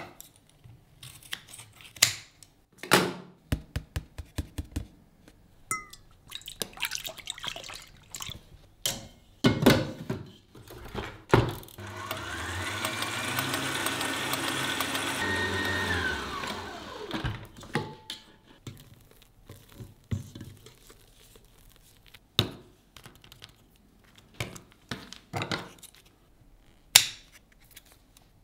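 Scattered clicks, taps and knocks of kitchen items being handled, then an electric stand mixer whisking in a steel bowl for about five seconds, its motor whine rising as it speeds up and falling away as it stops. More knocks and taps follow.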